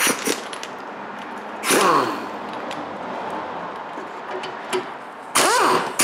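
Air impact wrench on a sway bar link nut: a short blip about two seconds in that winds down in pitch, then near the end a loud run with the pitch rising and falling over and over as the gun hammers the nut. The nut breaks loose, but the link's stud keeps spinning with it.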